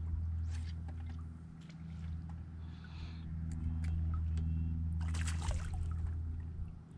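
Bass boat's electric trolling motor running with a steady low hum, easing off briefly about one and a half seconds in, with water lapping at the hull. A short rush of noise comes just after five seconds.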